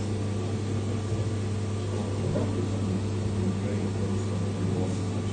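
CNC machine running steadily with a constant low hum partway through a long machining job on a gear knob.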